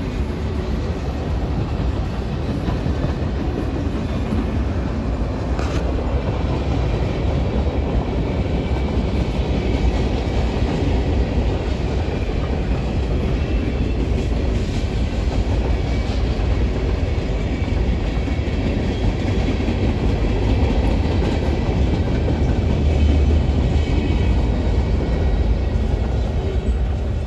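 Norfolk Southern mixed freight train's cars (covered hoppers, boxcars, gondolas) rolling by: a steady low rumble of steel wheels on the rails with faint scattered clicks.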